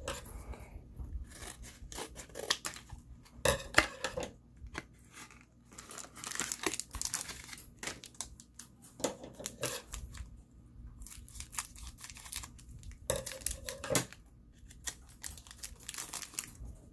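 A foil trading-card booster pack being torn open and crinkled in the hands: a series of short, irregular tearing and crackling rustles.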